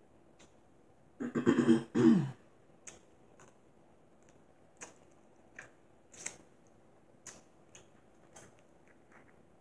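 A woman clears her throat with a falling, voiced rasp about a second in. Then come scattered small clicks and crackles of crab and shrimp shell being picked apart by hand.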